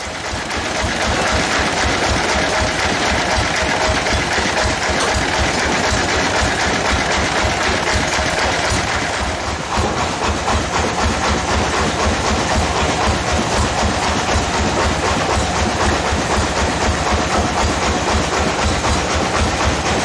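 Engine-driven sawmill bandsaw running: a steady mechanical noise with a fast, even low pulse, and a brief dip about ten seconds in.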